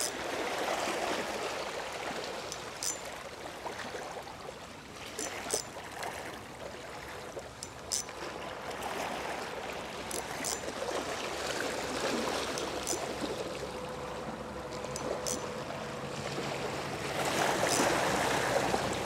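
Sea water washing and trickling among breakwater rocks, a steady rushing noise, with a few sharp, light clicks scattered through it.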